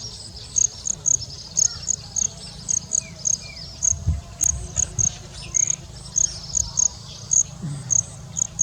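Insects chirping: short, sharp, high-pitched chirps repeating two or three times a second over a steady high trill.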